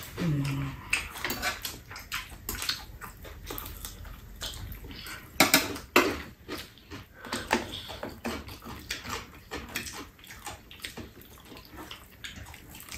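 People eating fried chicken with their hands: irregular chewing, lip-smacking and small clicks and snaps, a few louder ones now and then.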